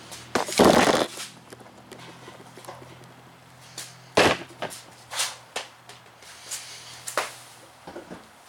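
A series of sharp knocks and clatters, the loudest about half a second in, with scattered lighter clicks later, over a faint steady hum.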